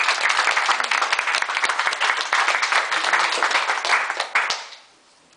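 A small group of people applauding, many hands clapping quickly and unevenly; the clapping dies away about four and a half seconds in.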